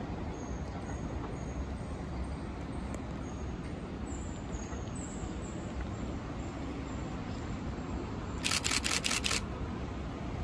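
A camera shutter firing in a rapid burst of about six clicks over roughly a second near the end, over a steady low background rumble.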